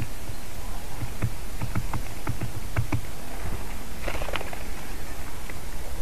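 Steady low wind rumble on an outdoor microphone, with a quick irregular run of sharp taps in the first half and a brief rasping burst about four seconds in.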